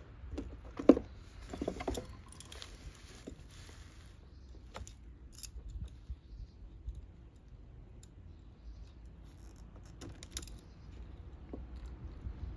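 Side cutters snipping through the mower motor's blue and green phase wires, with a sharp snip about a second in among smaller clicks. Then scattered small metallic clicks from a wire stripper being worked on the cut wire ends.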